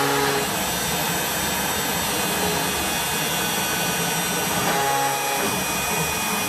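Bosch router motor on a CNC machine running at high speed: a steady whine with hiss.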